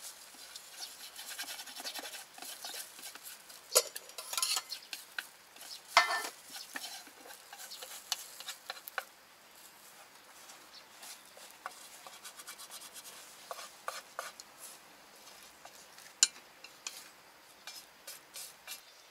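Scrambled eggs being stirred and scraped in a small electric nonstick pan with chopsticks and a spatula: quick scraping and light clinks of utensils on the pan and bowl. Sharp knocks stand out about four seconds in, six seconds in, and near sixteen seconds.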